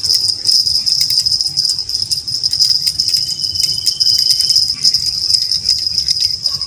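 Cicadas shrilling in a loud, steady, high-pitched drone with a fast rattling pulse.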